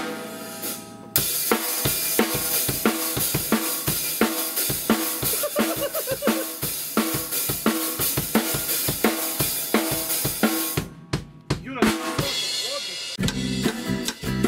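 Band music led by a drum kit: steady kick, snare and cymbal strokes over other instruments. It starts about a second in, breaks off briefly near eleven seconds, and picks up again with deep bass notes.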